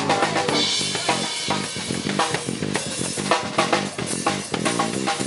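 Live rock band playing, the drum kit to the fore with fast bass drum and snare strokes and cymbals, over electric bass and electric guitar.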